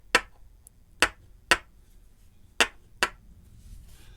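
Five sharp metallic knocks, spaced unevenly, as a disassembled Evva euro cylinder is tapped to work its sidebar loose.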